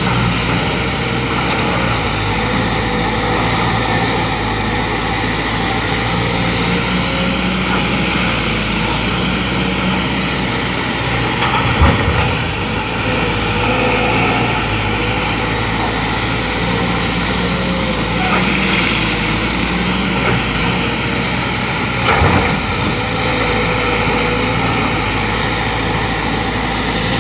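Kobelco SK200 excavator's diesel engine running steadily under working load, with a faint hydraulic-sounding whine coming and going. Two heavy thumps about twelve seconds in and again near twenty-two seconds.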